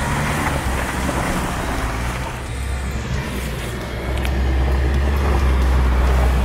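Off-road 4x4 pickup engine pulling under load on a climb, a deep steady drone that grows louder about four seconds in.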